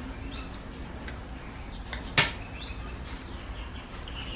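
Small birds chirping in short, high calls, with one sharp click about two seconds in over a steady low hum.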